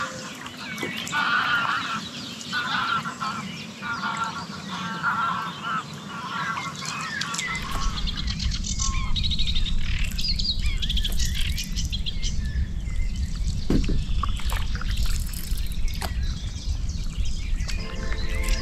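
Waterfowl calling over and over in short bursts, with small birds chirping. From about seven seconds in, a low rumble joins the bird calls.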